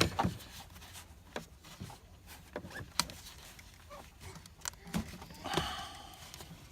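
Scattered light clicks and knocks of plastic engine-bay parts and push-tab clips being worked loose by hand, with a brief rustle about five and a half seconds in.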